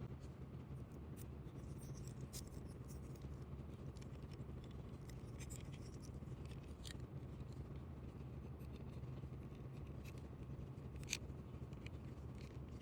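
Faint scattered clicks and light scrapes of small parts of a diecast model car being handled and pried apart by hand, over a steady low hum.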